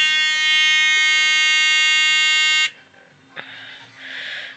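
Small electronic alarm buzzer on an ATtiny85 laser-alarm circuit sounding one steady high-pitched tone, tripped by a hand blocking the light to the photoresistor. It cuts off suddenly a little over halfway through as the circuit is reset, followed by a faint click.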